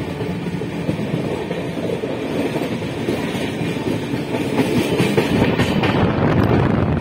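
Wheels of a moving passenger train coach running over the rails, heard through the open door: a steady rumble with a few sharp clicks, getting louder about four and a half seconds in.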